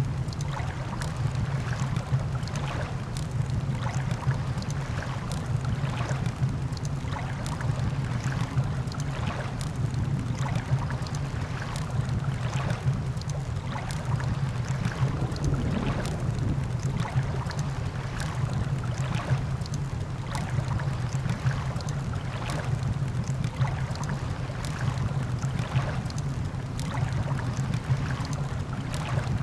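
Campfire crackling with frequent sharp, irregular pops over a steady wash of surf.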